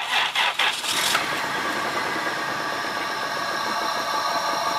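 1999 Dodge Caravan engine cranking on the starter, catching about a second in and settling into a steady, quiet idle with a faint high whine. This is its first start after a maintenance refresh: new plugs, wires, belt, alternator and water pump.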